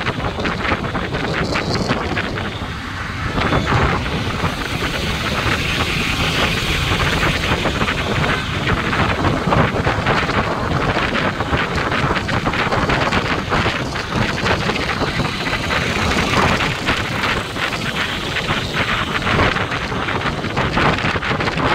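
Wind rushing over the microphone of a motorcycle moving at speed, with the bike's running and road noise beneath it; steady throughout.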